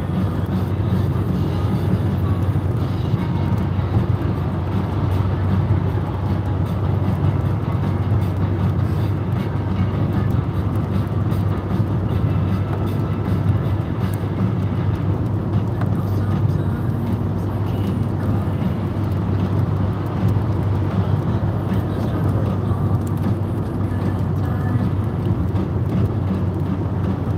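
Steady road and engine noise inside the cabin of a car driving at motorway speed on a wet road, with a deep hum under a tyre hiss.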